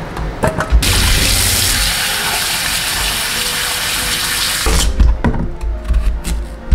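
Kitchen tap running into a stainless steel bowl while cut potatoes are rinsed by hand, starting about a second in and stopping abruptly nearly four seconds later. A chef's knife then chops through a carrot onto a cutting board in a run of sharp knocks.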